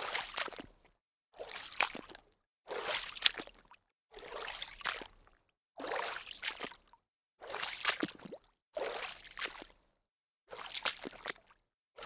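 Water splashing, recorded as Foley: a string of separate splashes, about one every second and a half, each lasting about a second, with dead silence between them.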